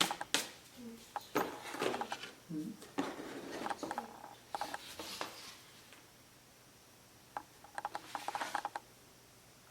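Handling noises: objects rubbed and clicked in several short bursts, with a quiet pause of about a second and a half in the middle.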